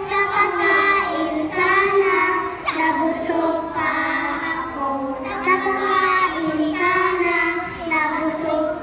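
A group of young children singing a song together, in sung phrases with short breaks between them.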